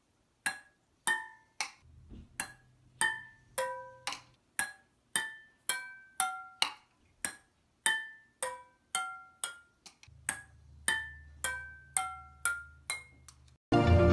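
Music: a melody of single struck, briefly ringing notes at an even pace of about two a second, like a marimba or wood-block tune, with a low bass note under parts of it. Near the end a louder, fuller music track cuts in.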